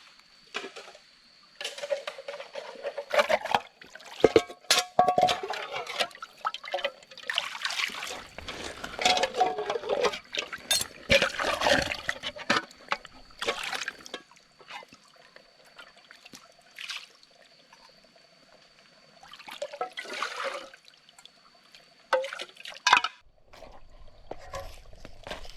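Water being poured and sloshed in camp cookware, with irregular knocks and clinks of utensils against pots.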